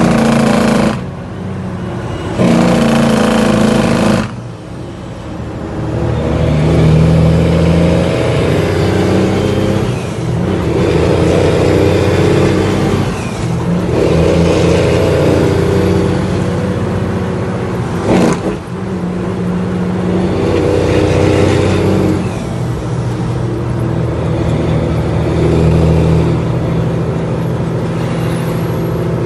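Heavy truck's diesel engine heard from inside the cab, its pitch climbing and falling back every few seconds as it is worked up through the gears. Two loud rushing bursts come in the first few seconds, and a single sharp crack comes about eighteen seconds in.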